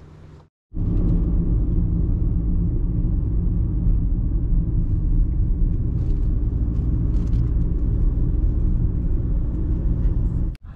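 Steady rumble of a car driving, road and wind noise on the microphone, starting suddenly about half a second in and cutting off near the end.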